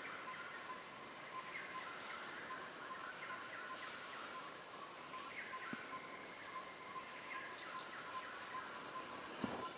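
Tropical forest ambience: a steady high-pitched insect-like trill with repeated short chirping calls over it, and a sharp knock or snap near the end.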